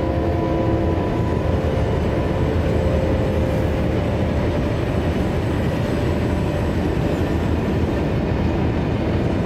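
Heavy freight train running past: diesel locomotives and a long string of ore wagons, a dense, steady rumble and rattle.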